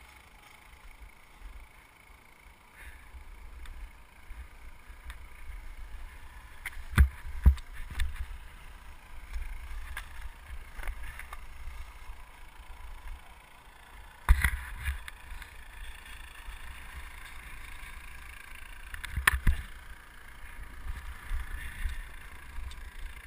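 Skis sliding and scraping over thin, patchy snow with grass showing through, with a low wind rumble on the body-mounted camera's microphone. It is quiet for the first few seconds, then builds as the skier picks up speed. Several sharp thumps come as the skis hit bumps, the loudest about seven, fourteen and nineteen seconds in.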